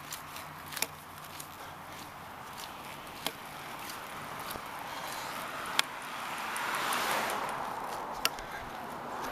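A person walking along a paved road shoulder, with a sharp tap about every two and a half seconds. A car passes, its tyre and engine noise swelling to a peak about seven seconds in and then easing off.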